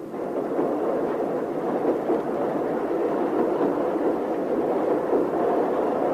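A moving train's steady running noise.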